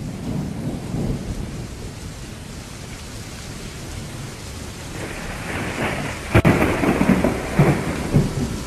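Recorded thunderstorm: steady rain with low rolling thunder, building to a sharp thunderclap about six and a half seconds in, followed by heavy rumbles.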